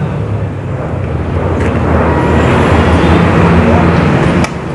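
Loud, steady low rumble of running machinery, with one sharp click near the end.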